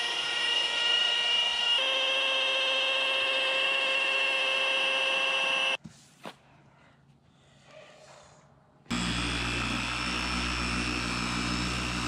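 Electric machine polisher running on aircraft paint, a steady whine that shifts pitch about two seconds in and cuts off suddenly around the six-second mark. After a pause of about three seconds, a polisher starts again with a deeper, heavier sound.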